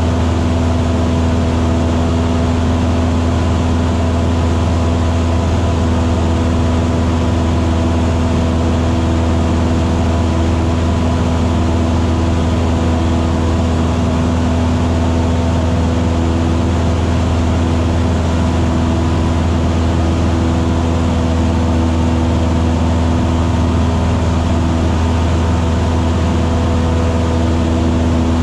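Small single-engine piston airplane's engine and propeller droning steadily, heard inside the cabin.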